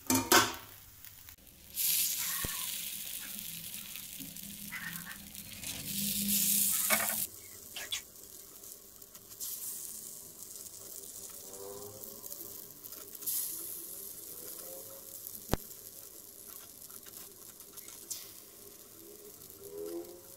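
Cassava paniyaram frying in oil in the wells of a paniyaram pan: a steady sizzle, loudest between about two and seven seconds in, then quieter. A clatter near the start and a few sharp metal clicks come from utensils on the pan as the paniyaram are turned with a knife.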